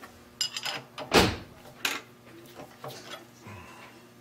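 Metal clicks and clunks of tooling being handled at a milling machine as the edge finder is taken out of the spindle, with one heavier knock about a second in.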